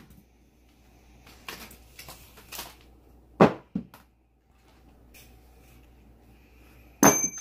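A screwdriver dropped onto an iPhone 7 lying on carpet. There is a loud knock with a smaller bounce about half a second later. Near the end comes another sharp hit with a short metallic ring, after a few faint taps early on.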